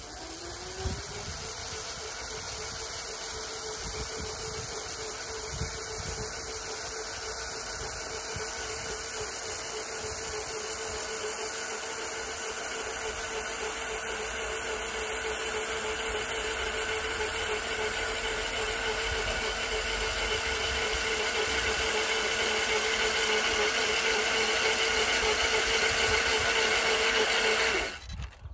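Electric walk-behind cultivator driven through a frequency inverter, its motor giving a steady whine while the tines churn soil. The motor's pitch rises as it comes up to speed in the first second, the sound grows louder as the machine comes closer, and it cuts off suddenly near the end.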